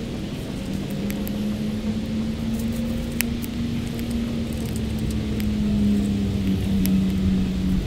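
A steady low engine drone over a low rumble, with a slight waver in pitch, cutting out near the end, with faint scattered crackles from the wood fire burning in the tin-can rocket stove.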